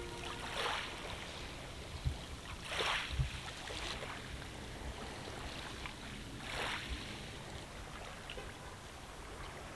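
Small waves washing up on a pebble beach, three separate swishes over a faint steady background of water. Two low thumps come a second apart around the second wash.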